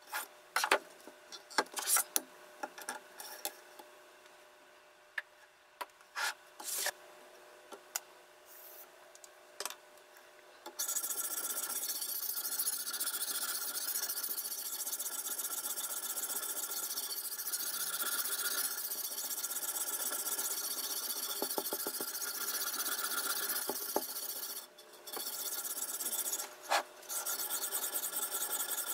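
A sharpening stone on a guided-rod knife sharpener rubbed back and forth along a kitchen knife's edge, a steady rasping scrape. It begins about a third of the way in, after a few sharp clicks and knocks, and breaks off briefly twice near the end.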